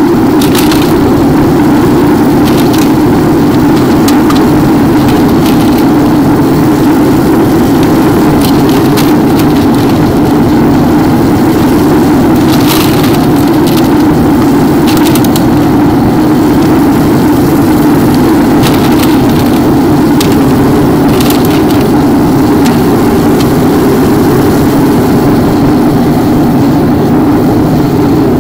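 Homemade metal-melting furnace running with a loud, steady rushing noise of air and flame. Scattered sharp crackles and pops come through it.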